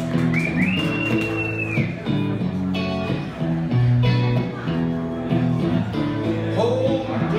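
Amplified electric guitar playing a steady run of held chords that change about every second. A high held tone sounds for about a second and a half near the start, and a child's voice comes in near the end.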